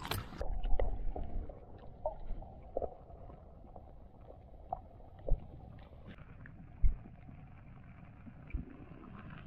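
A splash as the action camera goes into the lake, then muffled underwater sound heard through the camera's housing: a low rumble with a few low thuds and faint clicks.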